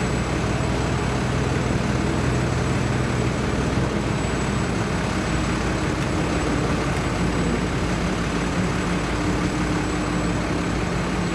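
Heavy machinery engine running steadily with a low hum, the sound of the crane and truck equipment working during the lift.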